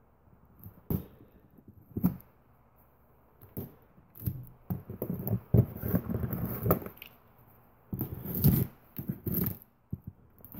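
Scissors cutting and scraping through the packing tape on a cardboard box, with rustling cardboard and the box knocking on a wooden table. Two sharp knocks come in the first two seconds, then bursts of scraping strokes.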